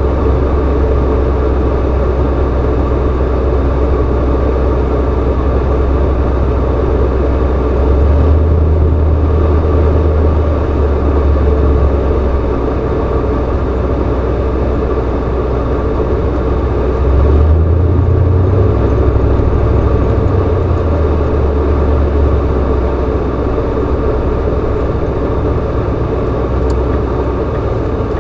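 A car driving, its engine and road noise making a steady rumble that swells a little about eight seconds in and again a few seconds past the middle.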